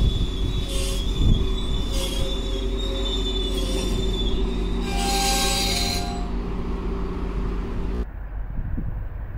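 GO Transit bilevel passenger coaches rolling past at speed. There is a steady high wheel squeal, a rush of wheel noise about once a second, and a louder screech about five seconds in. About eight seconds in, the passing-train sound drops away suddenly, leaving a low wind rumble.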